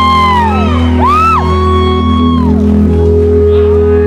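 Live indie rock band playing in a concert hall, with a heavy, steady bass drone and held chords, while fans in the audience whoop and shout in long rising-and-falling cries over it.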